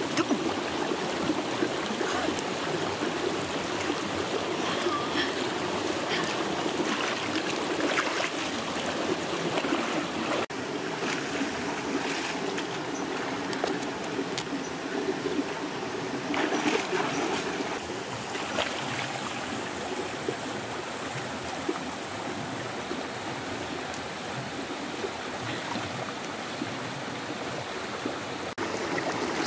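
Steady rush of a shallow, rocky stream, with water splashing and sloshing now and then as a person wades and swims through it.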